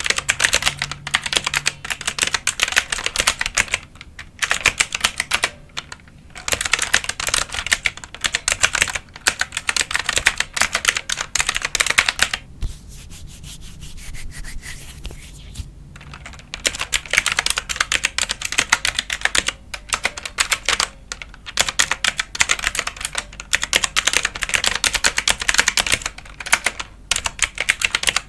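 Computer keyboard being typed on in fast, dense runs of key clicks, broken by brief pauses. About halfway through the typing drops to a softer, quieter stretch for a few seconds, then picks up again.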